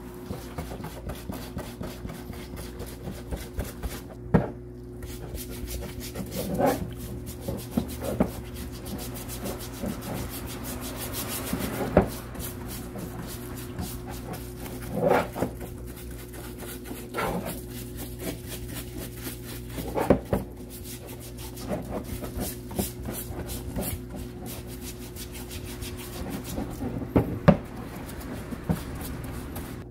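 Stiff brush scrubbing an angle grinder's housing parts in foamy cleaning liquid, with a few sharp knocks as the parts bump the washer tub. A steady low hum from the parts washer's pump runs underneath.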